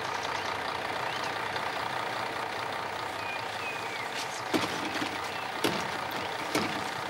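Truck engine idling steadily, now running again after roadside repair work, with a few light knocks in the second half.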